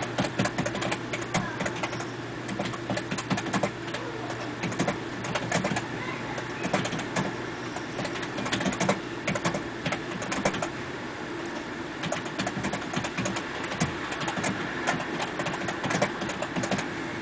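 Hail falling: many irregular sharp clicks of hailstones striking, over a steady hiss and a low hum.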